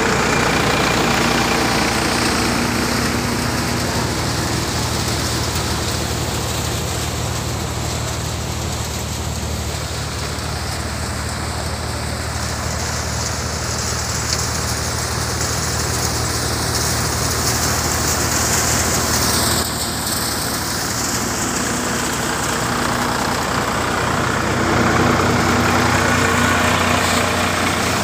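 Tractor engine driving a Vijay Khurai multi-crop thresher: a steady low engine drone under a broad, even rushing noise from the running machine.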